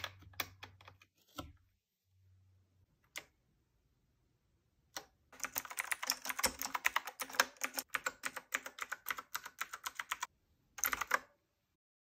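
Rapid typing on a KnewKey typewriter-style mechanical keyboard with round keycaps: a dense run of key clicks for about five seconds. A few scattered clicks come first, and a short burst of clicks near the end.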